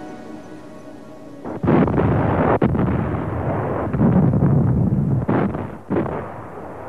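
Soft music, then from about a second and a half in, battle sounds: rumbling explosions and gunfire, with several sharp blasts.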